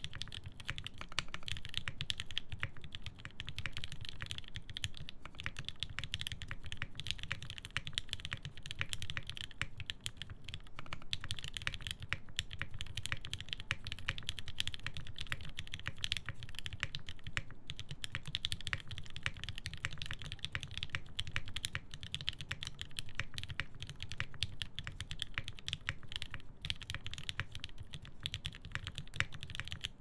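Fast, continuous typing on a hineybush TKL One mechanical keyboard with a half FR4 plate, Marshmallow switches lubed with Krytox 205g0, and GMK keycaps: a dense, steady stream of key clacks.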